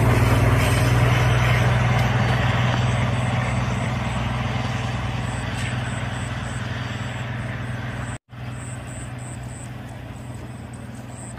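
Diesel train running past, a steady low engine hum with wheel and rail rumble, fading as it moves away; the sound drops out for a moment about eight seconds in.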